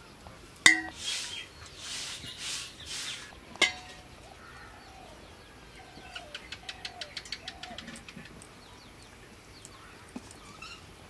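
Steel cookware clanking twice with a short ring, then cooked rice being scattered by hand from a steel plate into a steel pot, the grains pattering in a quick run of light ticks. Hens cluck faintly in the background.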